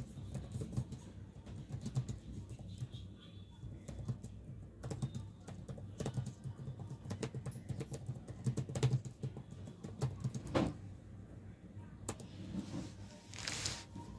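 Computer keyboard typing in quick, uneven clicks over background music, with a short hiss near the end.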